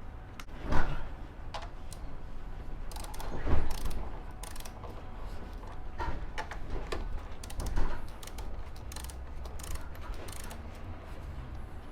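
Ratchet wrench clicking in short runs while tightening the front brake caliper mounting bolts, torqued to 31 N·m, with a few louder metallic knocks about a second in, midway and near the end.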